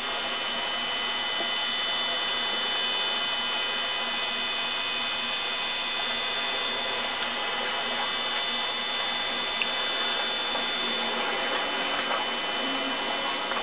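Steady hiss with a faint, unchanging high-pitched whine, an even mechanical noise with no change in level.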